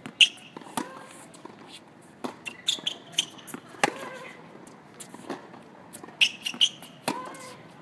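Tennis rally on a hard court: a string of sharp pops as the ball is struck by rackets and bounces on the court, about a dozen in all, with short high squeaks of tennis shoes on the court surface between them.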